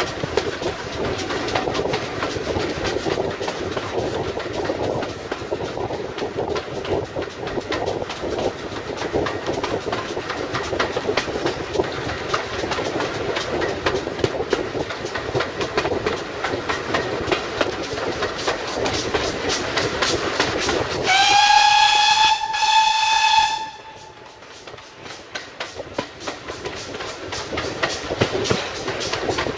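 Steam train running along, the steady rumble and clatter of the carriage heard from its window. About two-thirds of the way in, the whistle of GWR 0-6-0 locomotive 3205 sounds one long note that rises slightly and cuts off sharply after about two and a half seconds; the running noise then falls quieter and builds again near the end.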